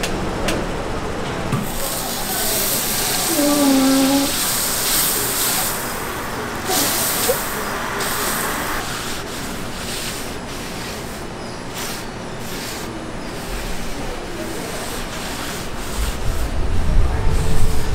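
Cooking utensils scraping and rubbing while toast is made, with short knocks and a steadier hiss for several seconds near the start.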